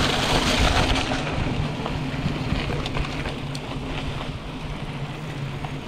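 Rushing noise of a mountain bike in motion, wind on the microphone and tyres on the trail, loudest in the first second and then easing, over a low steady hum.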